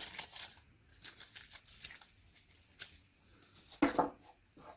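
Pleated paper filter media of a cut-open Bosch oil filter rustling and tearing faintly as it is pulled away from the perforated metal center tube, with small clicks and one sharper click near the middle.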